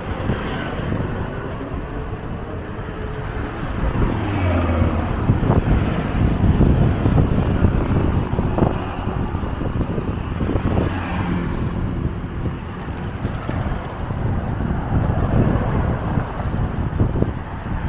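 Road traffic on a city street: motor vehicles driving past with a steady engine hum. It grows louder for several seconds in the middle as heavier vehicles go by, then eases off.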